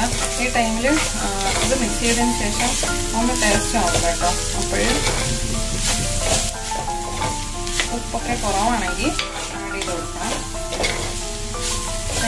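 A spatula stirring and scraping chopped vegetables and grated coconut in a hot clay pot, with the food sizzling and a run of scrape strokes. A tune plays underneath.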